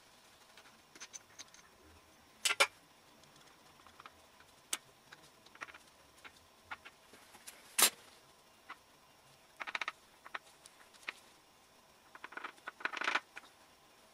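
Metal hand tools and engine parts clinking and rattling in short bursts with scattered light taps, as the bottom end of an upturned engine is worked on; the sharpest clink comes about eight seconds in and a longer rattle near the end.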